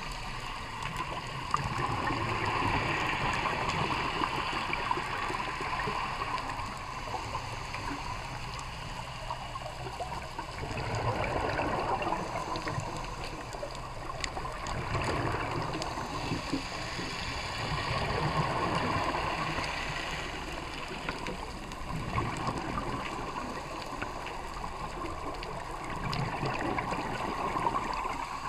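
Scuba regulator breathing heard underwater: exhaled bubbles gurgle and rush past the camera in swells every few seconds, with a dull wash of water between them.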